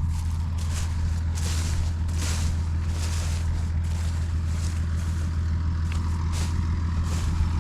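Tractor engine running steadily with a low drone, with a light hissing sound coming and going about every three-quarters of a second.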